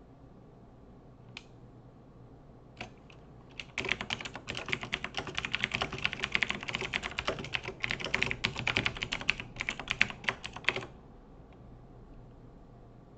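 Typing on a computer keyboard: a few single keystrokes, then about seven seconds of fast, continuous typing that stops near the end.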